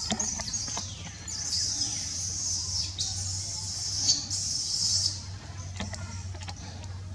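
High-pitched chirring of wildlife in the trees, with short breaks, stopping about five seconds in. A few sharp clicks follow over a steady low hum.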